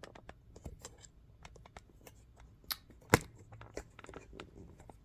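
Hands handling a laptop and its parts: scattered light taps and clicks, with one sharp click or knock about three seconds in.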